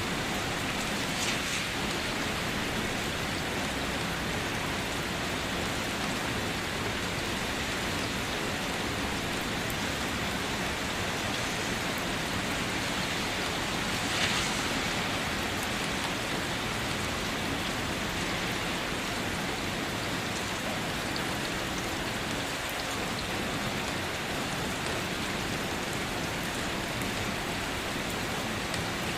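Steady rain falling, an even hiss with a couple of brief louder patters, about a second in and near the middle.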